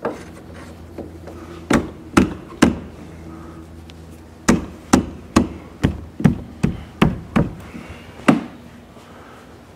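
Sharp knocks on the windshield frame as it is tapped down into place: three about two seconds in, then a quicker run of about eight at roughly two a second, and one last knock near the end.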